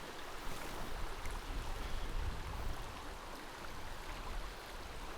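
Steady rush of flowing river water, with an uneven low rumble underneath.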